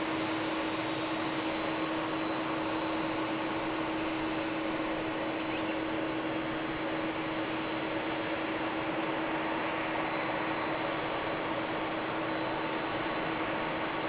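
Twin GEnx jet engines of a Japan Airlines Boeing 787-8 running at taxi power as it lines up for takeoff: a steady engine noise with a held low hum and a faint high whine, not spooling up.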